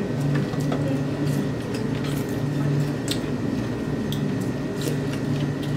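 Spoons clicking and scraping in dessert cups, a short tick every second or so, over a steady low hum of room noise.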